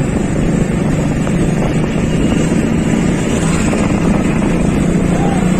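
Steady running noise of a moving vehicle with wind rushing over the microphone, a low drone underneath.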